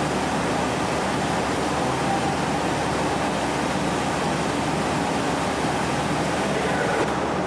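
Steady rush of air from a large industrial blower fan running, with a faint steady whine over it.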